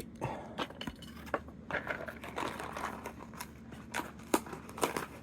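Lego minifigure packet and small plastic pieces being handled: crinkling with a run of irregular light clicks and rustles.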